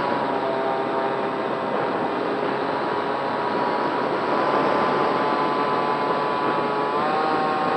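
Electric RC plane in flight: the Racerstar BR2208 2600KV brushless motor and propeller whine steadily over a rush of wind noise. The pitch shifts slightly near the end.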